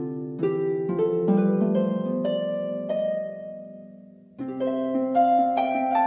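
Instrumental background music of plucked, ringing notes in a slow upward run. The notes die away about three seconds in, and a new, quicker phrase begins about four and a half seconds in.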